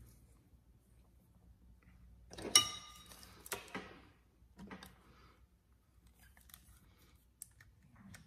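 A small metal curling iron being handled: one sharp metallic clank with a brief ring about two and a half seconds in, followed by a few lighter clicks of its clamp and barrel, then faint ticks.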